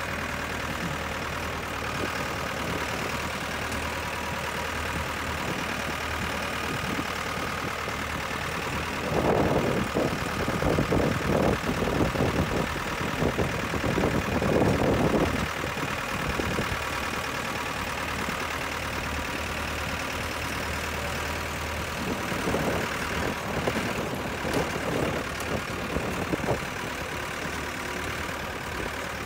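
Motor vehicle engine idling steadily, with two stretches of louder, uneven rumbling, the first about a third of the way in and the second in the later part.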